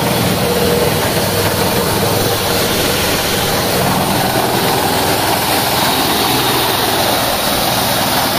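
Small engine running steadily under load, driving a portable rice thresher's drum and double blower fans, with a dense, even whirring noise on top of the engine.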